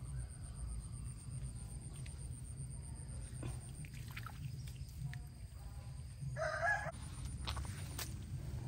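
A chicken calls once, a short pitched call about six seconds in, over a steady low hum with a few faint clicks.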